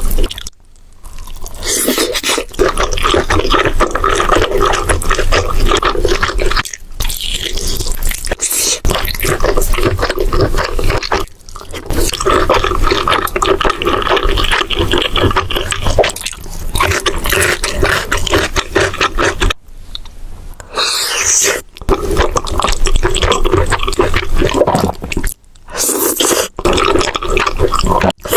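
Close-miked mukbang eating sounds: a person chewing food loudly, broken by several brief pauses.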